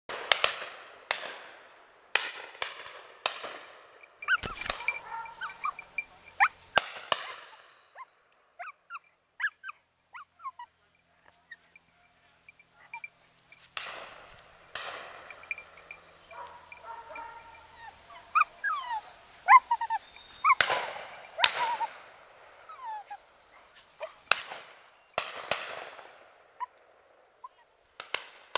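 English cocker spaniel whining and yipping in many short, high calls, among repeated bursts of noise.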